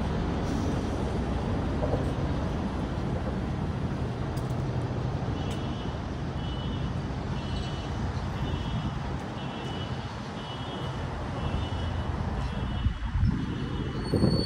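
Steady city traffic rumble from the nearby street and freeway. From about a third of the way in, a faint electronic beep repeats roughly once a second.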